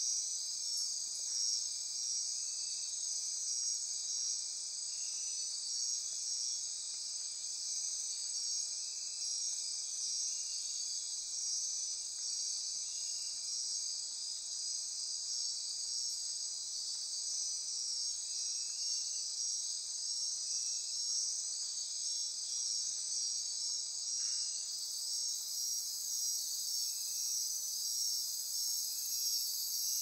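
Dense chorus of night insects in a tropical rainforest: a steady high trilling and buzzing with a fast pulsing beat. Short, lower chirps repeat every couple of seconds.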